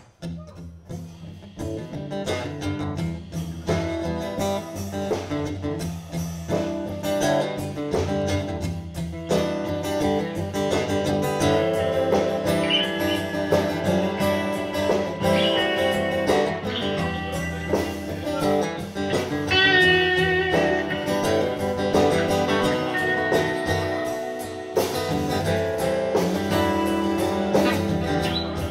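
Acoustic guitar and archtop electric guitar playing a blues instrumental intro together, getting louder over the first few seconds.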